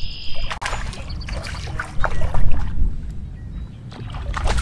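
Low wind rumble on the microphone aboard a small fishing boat, with light water sounds and scattered knocks against the boat. It swells loudest about two seconds in.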